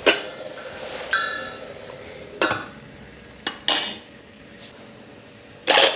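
Metal pots, lid and utensils clinking and knocking as a cooking pot is handled and covered: about six sharp clinks at uneven intervals, one about a second in ringing briefly.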